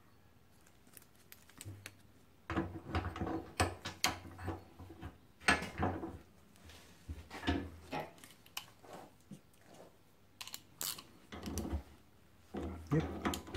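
Intermittent rustling and light metal clicks from gloved hands working on a motorcycle brake caliper: a hex key on its bolts and a rag wiping it.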